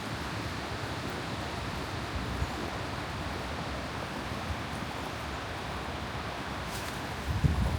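Steady wind of a snowstorm rushing past, with a gust buffeting the microphone near the end.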